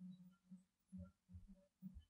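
Faint, short, low hooting calls, the 'who who' sounds, repeated about five times in two seconds at uneven intervals, in an overnight field recording. The recordist attributes them to Bigfoot.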